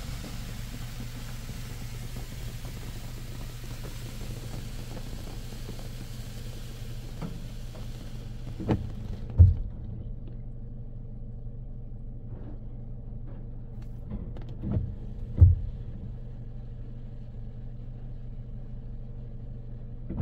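Spray from a D&S IQ touch-free car wash gantry hitting the car, heard from inside the cabin, dying away about eight seconds in. After that a steady low hum remains, broken by a few loud thumps.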